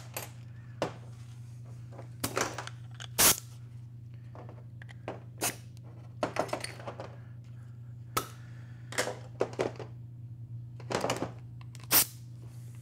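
Metal transmission parts and tools being handled and set down on a steel workbench as the accumulator is taken apart: scattered clicks and clanks, the sharpest about three seconds in and near the end, over a steady low hum.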